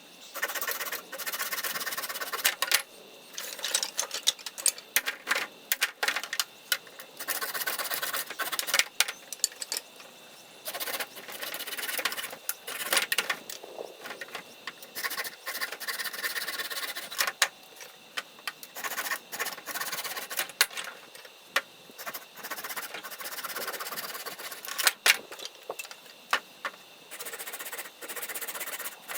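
Hand saw cutting through a dry firewood branch, in runs of quick back-and-forth rasping strokes broken by short pauses. The wood is dry, which makes it hard going for a hand saw.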